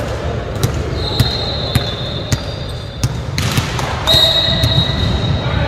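Volleyball bounced on a hardwood gym floor, a sharp bounce about every half second or so, several times in a row.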